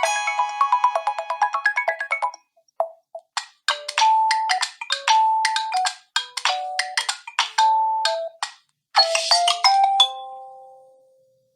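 Preset ringtones of a Nokia 1 phone: the end of one fast tune of many quick notes, then after a short pause a second tune of separate short notes that finishes on a long fading note near the end.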